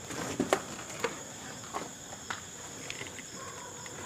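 Crickets chirring steadily at several high pitches, with a few irregular scuffs and knocks close by, most of them in the first two seconds.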